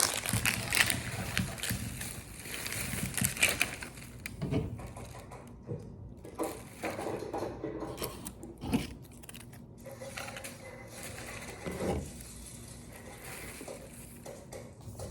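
Small plastic toy packaging being handled by hand: irregular crinkling and rustling with light clicks and knocks.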